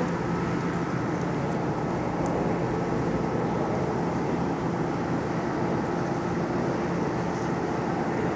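Steady ambient noise of a busy bus station waiting hall: an even rumble with a constant low machine hum and no distinct events.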